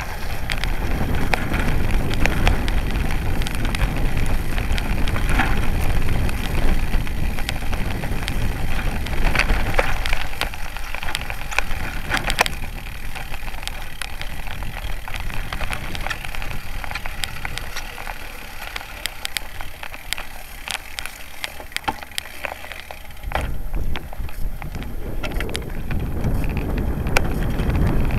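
Road bike rolling over a rough gravel and grass dike path: tyre rumble with many sharp clicks and rattles from bumps and stones, and wind buffeting the microphone. The rumble eases for a few seconds about two-thirds of the way through, then picks up again.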